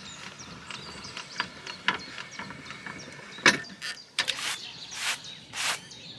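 Caravan corner steady being wound up with a metal crank handle: small metal clicks and scrapes, one sharp clank about three and a half seconds in, then a rhythmic rasping about twice a second as the handle turns.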